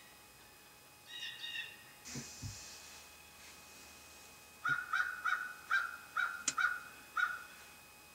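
A crow cawing: a run of about seven harsh caws, roughly two a second, starting about halfway through, after two shorter, higher calls and a brief rustle.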